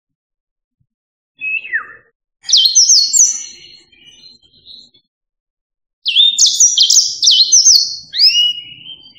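Yellow-fronted canary singing: a short falling note, then a fast phrase of high, repeated notes, and after a pause of about a second a second, longer run of quick sweeping notes that ends on a rising slurred note.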